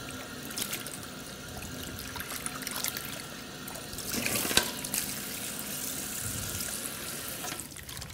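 Water from a salon hand-shower sprayer running through wet hair and splashing into a backwash basin as the laminating hot wrap is rinsed out. The flow gets louder about four seconds in and dies away near the end.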